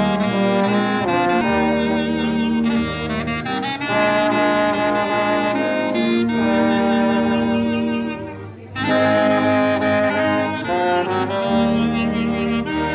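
Small ensemble of violin, clarinet, alto saxophone, tuba, accordion and trombone playing a hymn together in harmony, in long held notes. A brief break between phrases about eight seconds in.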